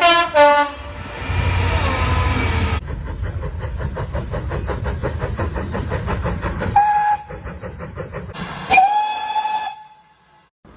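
Train whistles heard in separate clips. First come two short blasts with a tail falling in pitch over a rumbling running noise. Then a fast even beat of about five strokes a second, a brief toot, a short hiss, and a whistle blast of about a second that cuts off abruptly.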